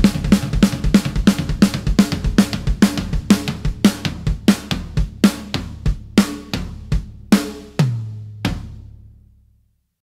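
Rock drum kit playing the song's closing hits, kick, snare and cymbals, that slow down steadily. A last hit comes about eight and a half seconds in, and a held low note rings after it and dies away to silence.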